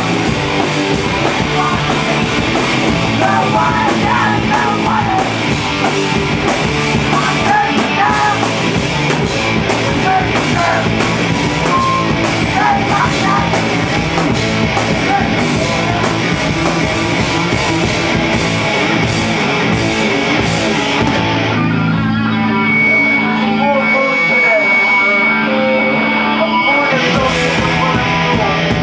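Live punk rock band playing loud: distorted electric guitars, bass and drums. Near the end the drums stop for a few seconds while the guitars ring on with held chords, then the full band comes back in.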